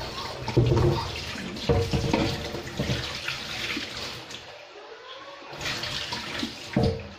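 A stainless electric kettle knocked and handled on a tiled counter, then water poured from it, the pour's pitch rising as the container fills near the end.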